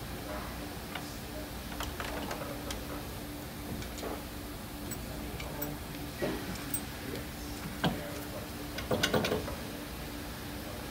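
Light clicks and knocks of metal coupler parts being handled and fitted by hand, with a cluster of small clatters near the end, over a steady low hum.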